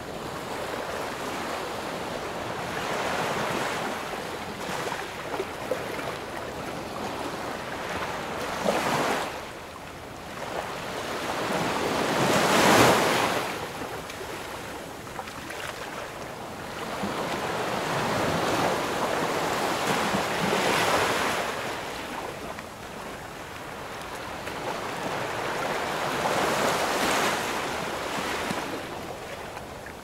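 Ocean surf breaking on a sandy beach. The waves swell and wash out in turn about every five to six seconds, the biggest one near the middle.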